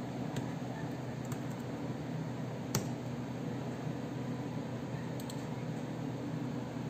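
Steady hum of the HP Z400 desktop computer's cooling fans. A few sharp clicks sound over it, and the loudest comes about three seconds in.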